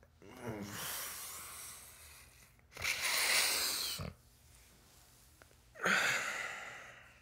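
A man's heavy groaning sighs, three in a row: a long groaning sigh, then a louder breathy exhale about three seconds in, then another sigh that trails off near the end.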